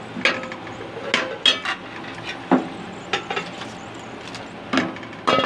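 Metal slotted spoon knocking and scraping against the inside of an aluminium cooking pot while scooping out fried onions: a series of irregular clinks and taps.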